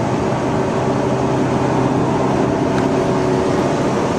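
Car engine pulling under acceleration, heard from inside the cabin as a steady engine note over road noise; the owner says the engine is so bad you can hear it rev up.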